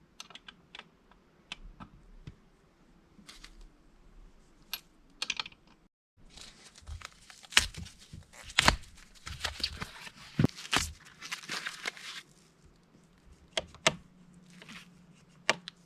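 Scattered clicks, taps and rustling from hands working on an electric bike's handlebar assembly, busier and louder in the second half with a few sharp knocks.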